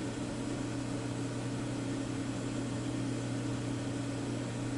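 Steady low electrical hum with an even hiss and no clicks or changes, typical of mains-powered bench equipment or room noise.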